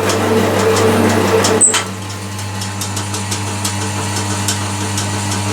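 Metalworking machine tool running steadily with a low motor hum and faint light ticks. About a second and a half in the sound changes abruptly and runs on a little quieter.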